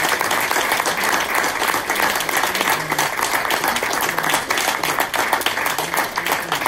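A group of people applauding, many hands clapping at once without a break.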